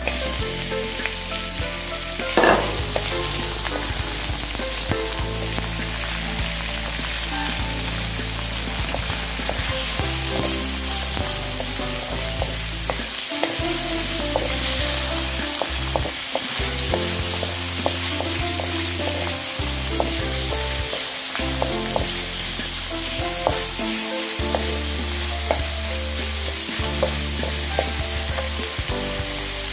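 Chicken pieces sizzling in hot oil in a steel wok with garlic, onion and ginger, stirred and scraped with a wooden spatula; a short sharp knock about two and a half seconds in.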